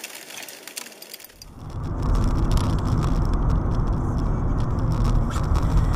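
Steady low engine and tyre rumble inside a moving car, picked up by a dashcam, starting about a second and a half in after a short quieter stretch.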